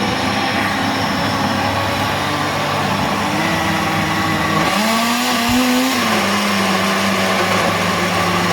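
Electric kitchen blender running at full speed, puréeing soaked beans with peppers and onions; the motor's pitch shifts about five seconds in.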